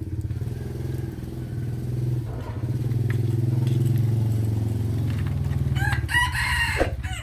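A rooster crowing once, loud, about six seconds in, over a steady low motor hum.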